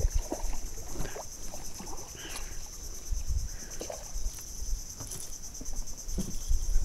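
Steady high-pitched insect chorus with an even pulsing, from the mangroves, with low rumbles and a few faint light splashes from a hooked fish thrashing at the surface.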